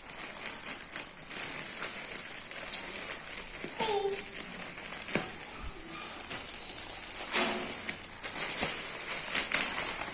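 Plastic courier packaging crinkling and rustling as it is torn open, with scattered crackles throughout.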